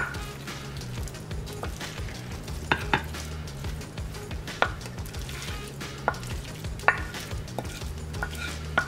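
A spatula scraping a creamy egg-noodle mixture out of a large ceramic bowl into a glass baking dish: soft wet sliding and plopping, with scattered sharp taps of the utensil against the bowl, over a low steady hum.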